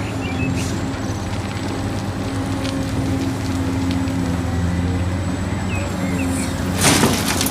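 Large Caterpillar hydraulic excavator's diesel engine running steadily at work. A loud clattering burst comes near the end.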